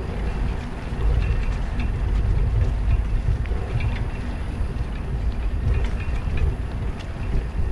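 Steady low rumble of wind buffeting the microphone and bicycle tyres rolling over interlocking brick paving while riding, with faint short high ticks scattered through.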